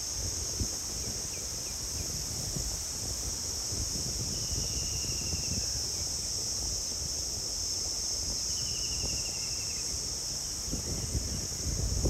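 Steady high-pitched insect chorus with wind rumbling on the microphone. Twice a bird gives a short, slightly falling trill.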